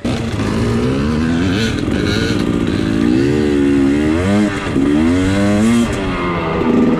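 Dirt bike engine revving hard under acceleration, its pitch climbing and dropping several times as it shifts through the gears.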